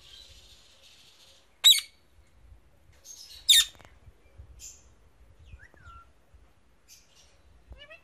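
Indian ringneck parrot giving two short, loud, shrill squawks, about a second and a half and three and a half seconds in, with softer chirps and a short falling whistle between.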